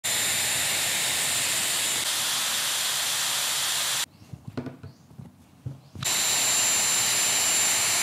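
Next-generation Dyson Airwrap blowing hot air through its curling barrel: a steady rush of air with a thin, high whine from its motor. It stops abruptly about halfway through, leaving only faint handling sounds, and comes back just as suddenly about two seconds later.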